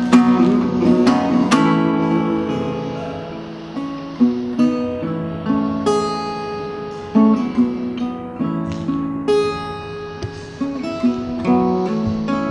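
Small-bodied steel-string acoustic guitar playing an instrumental passage without vocals: picked and strummed chords that ring out and fade between strokes.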